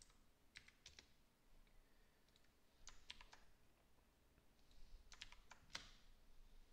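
Faint typing on a computer keyboard: three short runs of keystrokes.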